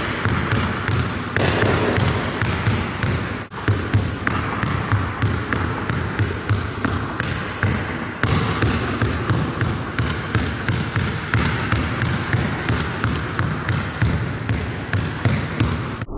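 Several basketballs dribbled on a hard court floor: a steady, dense, irregular stream of bounces.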